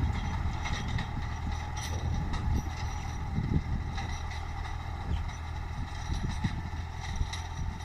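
Tractor engine running steadily, with irregular knocks and clatter over it, while ploughing a field.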